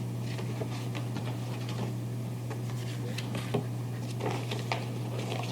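Faint scattered rustles and light taps of a cardboard box and its contents being handled, over a steady low hum.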